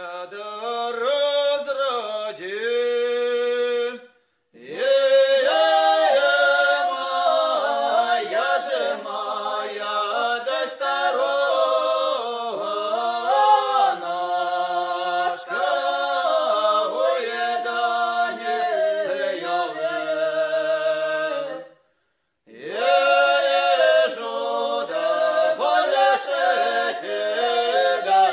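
Unaccompanied choral singing of a slow, mournful song, held notes sliding from one pitch to the next. It breaks off briefly between phrases about four seconds in and again about three-quarters of the way through.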